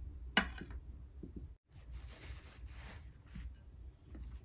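A single sharp clink of ceramic tableware about half a second in, then faint soft rustling of a hand mixing rice and curry on a plate, over a low steady room hum.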